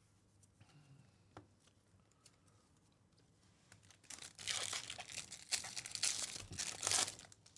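Foil wrapper of a 2024 Bowman baseball card pack crinkling and tearing as it is ripped open by hand, starting about halfway through.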